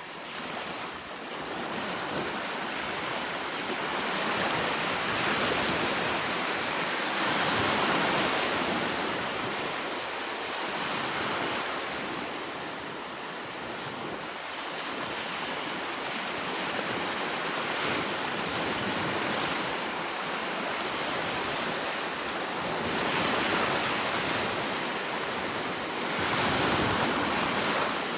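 Sea waves breaking and washing on a shore, a steady rush of surf that swells and ebbs every few seconds.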